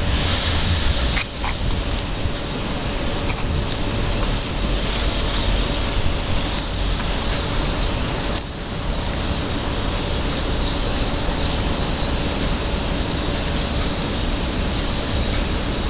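Steady outdoor urban background noise: distant traffic with a continuous high hiss, and a few faint clicks in the first half.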